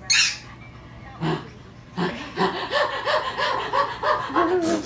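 Baby laughing: a sharp breathy gasp at the start, then a quick run of high, even laughs, about four a second, that trails off into a wavering note near the end.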